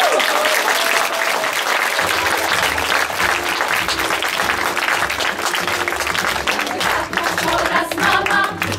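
Audience applauding. Backing music comes in about two seconds in, and singing starts near the end.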